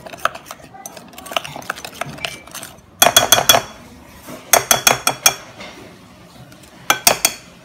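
Metal spoon stirring and beating a thick Milo paste in a bowl, clicking and clinking against the bowl's side. Light scraping clicks, with three louder runs of rapid clinks at about three, four and a half, and seven seconds in.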